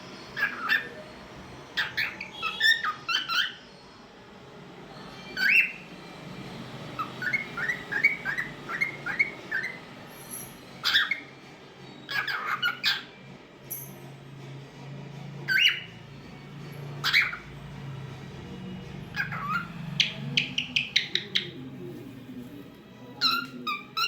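Cockatiel chirping and whistling in short separate calls, with a quick run of about seven repeated notes in the middle.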